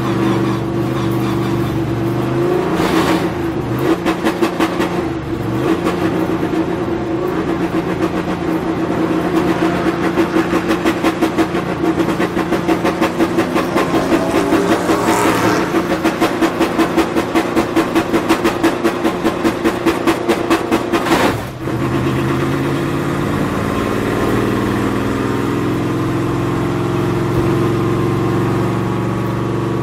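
NASCAR stock car's V8 engine heard from inside the cockpit, running hard on the oval, its pitch rising in the middle. It dips briefly about two-thirds of the way in, then runs steady again.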